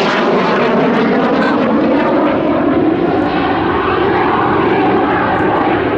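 A formation of BAE Hawk T1 jets with Rolls-Royce Turbomeca Adour turbofans flying past, making loud, steady jet noise whose pitch drifts gently up and down as they pass.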